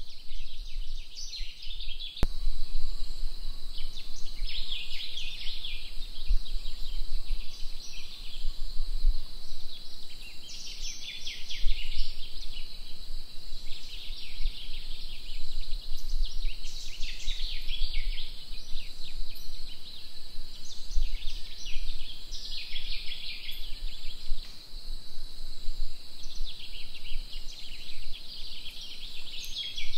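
Tropical wetland ambience: a steady high-pitched insect drone, with bursts of rapid chirping every few seconds from birds or insects. A single sharp click sounds about two seconds in.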